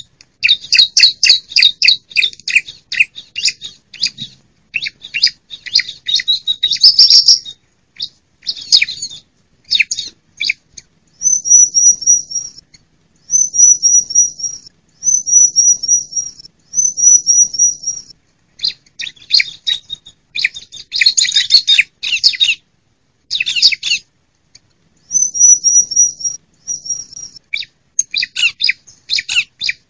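Female bar-winged prinias (ciblek) calling: bursts of rapid, dense chattering alternate with short runs of about half a dozen quick, high, clipped notes, with brief pauses between phrases.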